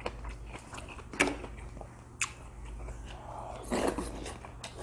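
Close-miked eating sounds: chewing and wet mouth noises as soft tofu in soybean-paste stew is eaten, with a few sharp clicks and a louder noisy stretch around three to four seconds in.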